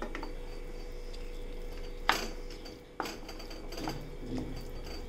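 Cookware knocking: a steel bowl and a plastic spatula clinking against a nonstick pan as fried chicken pieces are tipped into thick cheese sauce and stirred in. The sharpest knock comes about two seconds in, another a second later, with lighter taps between.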